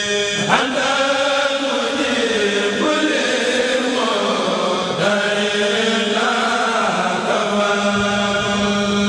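A kourel, a group of men, chanting a khassida (a Mouride Arabic devotional poem) together through microphones, in long held notes that slowly rise and fall over a steady low held tone. A voice makes a sharp swoop up and back down about half a second in.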